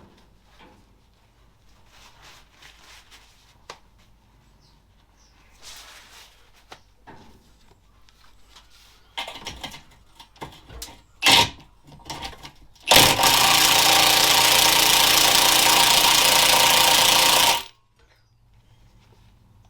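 Handheld power tool, working the old exhaust clamps off. After some handling clicks and a few short blips, it runs steadily at one even pitch for about four and a half seconds, then cuts off sharply.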